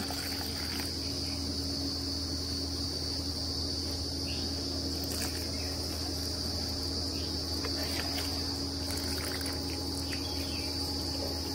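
Insects trilling steadily: a continuous high-pitched drone, with a low hum underneath.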